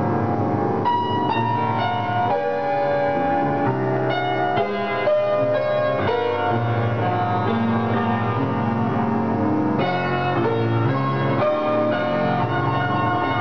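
Upright piano being played: a steady flow of chords and melody notes, one after another.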